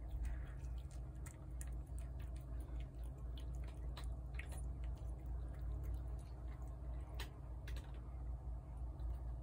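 A cat chewing food from a paper plate: faint scattered clicks and crunches over a steady low rumble.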